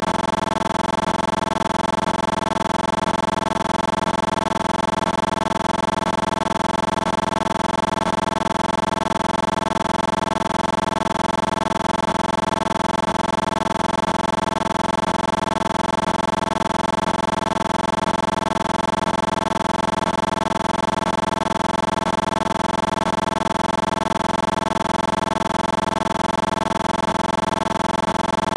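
A steady, unchanging hum made of several held tones, at a constant level throughout.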